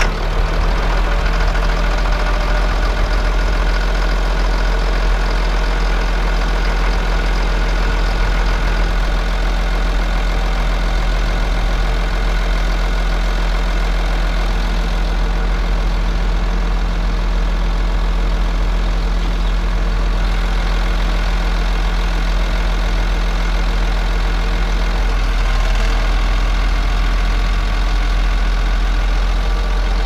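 Caterpillar D5N bulldozer's six-cylinder diesel engine idling steadily just after start-up, warming the oil before an oil change. The note shifts slightly about 25 seconds in.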